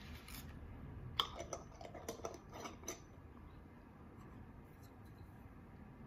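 Metal screw lid being set on a small glass jar and twisted shut: a quick run of clicks and scrapes lasting about two seconds, some with a faint metallic ring.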